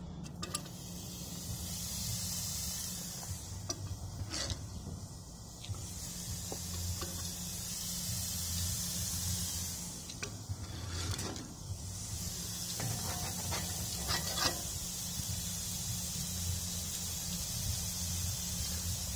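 Raw ground-beef hamburger patties sizzling on hot grill grates, a steady hiss, with a few clicks and scrapes as a metal spatula sets them down. A low steady hum runs underneath.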